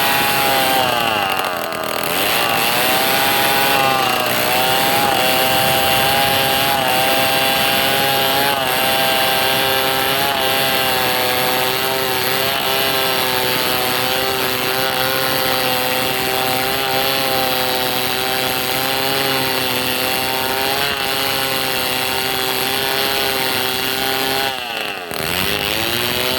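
Two-stroke chainsaw running steadily at high revs while slicing through wood, its pitch sagging briefly about two seconds in and again near the end before picking back up.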